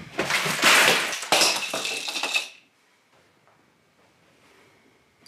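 Sudden crash and clatter of a jigsaw puzzle and small objects swept off a coffee table, many pieces knocking and rattling together for about two and a half seconds.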